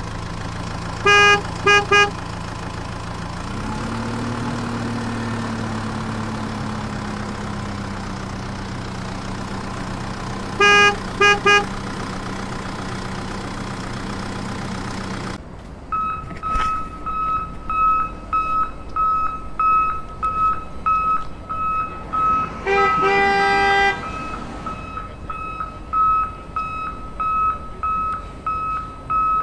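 Truck sound effects: a diesel truck engine idling and revving slightly, with two sets of short horn toots. The engine cuts off about halfway through, and a reversing beeper takes over, beeping about one and a half times a second, with a horn blast of about a second in the middle.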